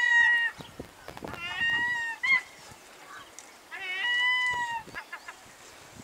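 Herring gulls calling: three drawn-out mew calls, each about half a second long and level in pitch, the first at the start, then about a second and a half in and about four seconds in, with a quick run of short clipped notes near the end.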